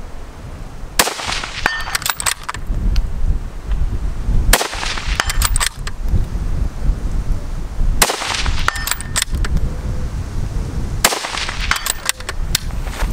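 Scoped bolt-action rifle fired four times, roughly three and a half seconds apart. Each shot is followed by a few short, sharp clicks, over a steady low wind rumble on the microphone.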